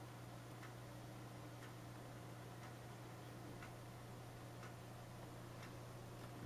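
Clock ticking faintly, about once a second, over a steady low hum.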